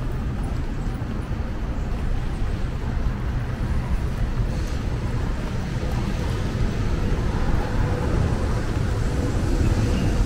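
Steady low rumble of city road traffic, growing slightly louder toward the end.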